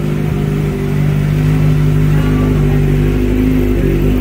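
A vehicle engine running at a steady, held speed, its pitch wavering a little near the end.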